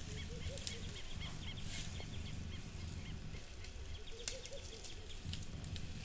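An African elephant browsing in a tree, its trunk pulling down leafy branches: rustling leaves and the odd crackle of twigs. A bird calls twice in quick runs of short rising-and-falling notes.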